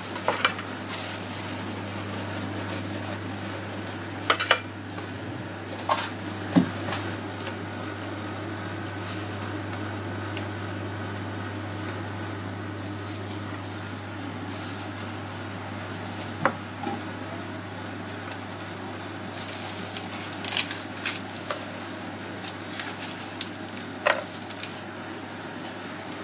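Kitchen utensils working over a steady low hum: a knife and a metal ice cream scoop clink and tap against a steel tray and a wooden cutting board as a melon bun is cut and filled with ice cream. There are scattered sharp knocks, a few of them louder than the rest.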